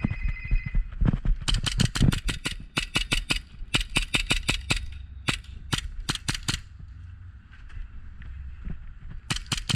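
Airsoft guns firing: quick strings of sharp cracks in several bursts over about five seconds, then a pause and one more short burst near the end.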